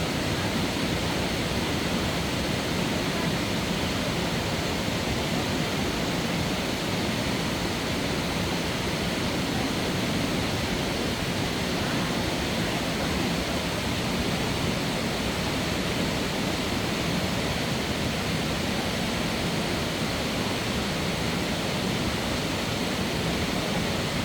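Mountain valley stream rushing steadily over rocks.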